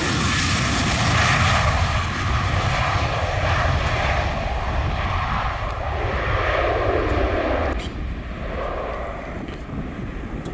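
Boeing 737 jet engines at takeoff power, a steady rumbling roar that eases off after about eight seconds.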